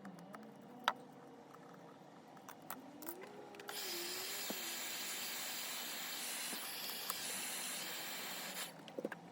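A steady hiss of rushing air or spray that starts suddenly a few seconds in and cuts off about five seconds later, with light clicks and taps of small tools before and after it.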